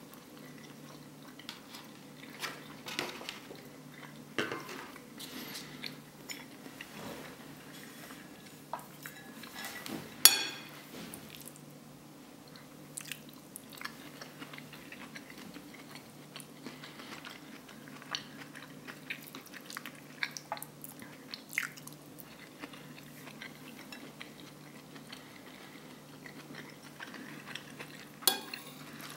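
Close-miked chewing of rice and vegetable curry, with a metal spoon scraping and clinking against the plate. One sharp ringing clink comes about ten seconds in and another near the end, over a faint steady low hum.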